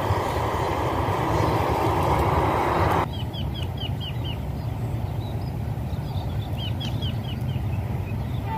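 A steady rushing noise that stops abruptly about three seconds in, followed by wind on the microphone and a small bird giving two quick runs of short falling chirps.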